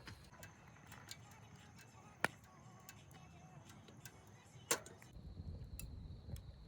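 Two sharp clicks or knocks about two and a half seconds apart among faint scattered ticks, and from about five seconds in a steady high insect trill.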